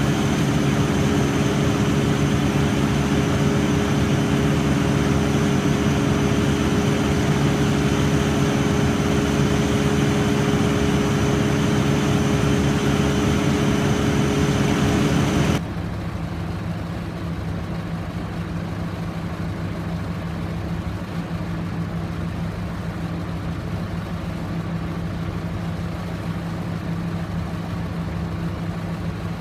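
Heavy engine running steadily at a constant speed. About halfway through, the sound drops suddenly to a quieter, lower steady engine hum.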